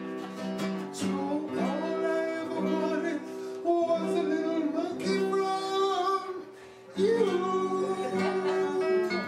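A song: a man singing a melody over acoustic guitar.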